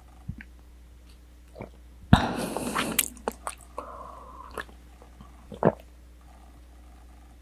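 Close-miked eating of tonkatsu, a breaded pork cutlet. A loud bite about two seconds in lasts roughly a second, followed by softer chewing and scattered wet mouth clicks.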